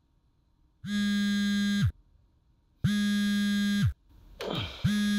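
A vibrating buzzer goes off three times, each buzz about a second long with about a second's gap, each sliding up to a steady low pitch and dropping away at the end. There is a brief rustle just before the third buzz.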